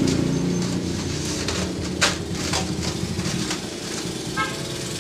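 A heavy-duty (non-O-ring) motorcycle chain being kneaded and scrubbed by hand in a metal basin of soapy detergent water, with a sharp knock about two seconds in.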